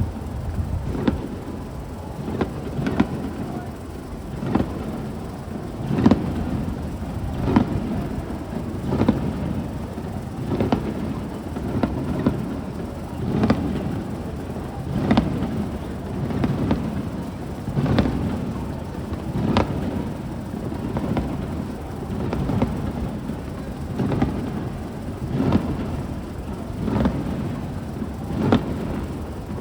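Aerial fireworks shells bursting in a steady series, a boom about every second and a half, over a continuous low rumble.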